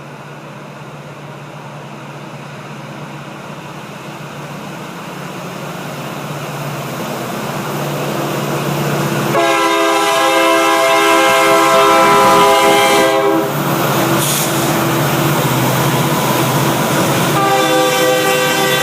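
Norfolk Southern freight train approaching, its running noise growing steadily louder. The locomotive's air horn then sounds a long blast of about four seconds, and starts another blast near the end.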